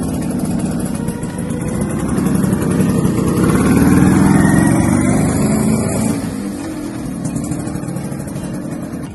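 1984 Vespa PX Sport scooter's two-stroke single-cylinder engine, fitted with a Giannelli exhaust, accelerating as it rides past. It rises in pitch and is loudest about four seconds in, then fades as the scooter rides off.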